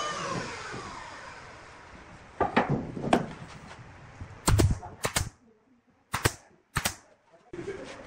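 Wood lathe motor winding down, its whine falling in pitch and fading over the first second or two. This is followed by a series of sharp wooden knocks and clacks, about seven, with short near-silent gaps between them.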